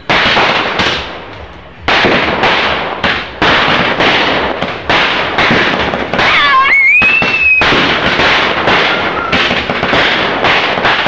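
Fireworks going off in quick succession, sharp bangs about two a second, each trailing off, with a whistling tone that glides down and back up about six seconds in.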